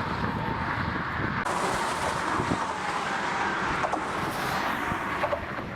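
Car traffic going by on a road, a steady rush with a faint tone slowly falling in pitch as a vehicle passes.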